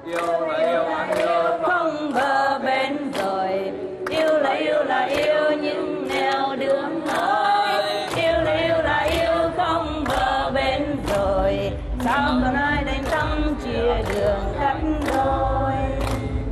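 A Vietnamese song sung by voices over music with a steady beat; a deep bass part comes in about eight seconds in.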